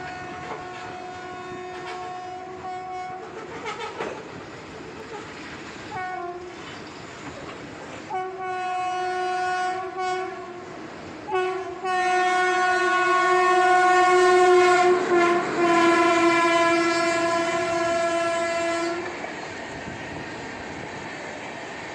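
WAP-7 electric locomotive's horn sounded in repeated blasts as the train approaches, ending in one long blast of about seven seconds whose pitch drops slightly about fifteen seconds in. After the horn stops, the Shatabdi's LHB coaches rumble and clatter past at speed.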